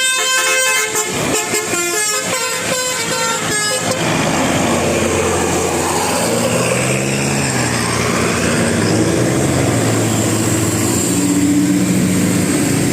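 A bus's 'telolet' multi-tone basuri horn plays a quick melody of stepped notes for about the first four seconds. Then the bus engine's drone takes over, rising and falling in pitch as the bus drives past.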